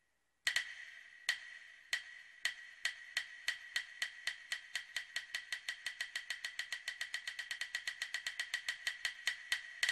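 A series of sharp clicks, each with a bright ringing tone, speeding up from under one a second to about six a second, with a louder click near the end that rings on.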